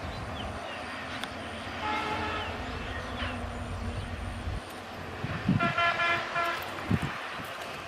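A vehicle horn honks twice, each toot lasting about half a second to a second, the second one louder. A low engine rumble under the first toot stops about halfway through, and two dull thumps come near the second toot.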